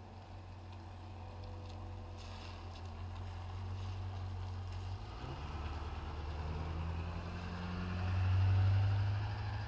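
A vehicle engine running with a steady low hum that grows louder through the stretch and is loudest near the end.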